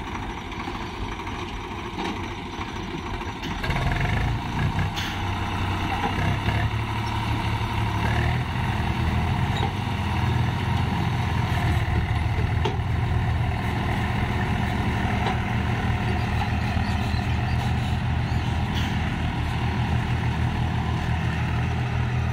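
Diesel tractor engine running hard under load, hauling a sand-laden trolley stuck in mud and water. Its note rises and gets louder about four seconds in, then holds steady.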